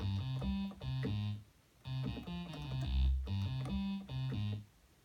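Moog Sub 37 analog synthesizer playing a bass riff on a single oscillator: phrases of short pitched notes with a brief pause about a second and a half in, stopping shortly before the end.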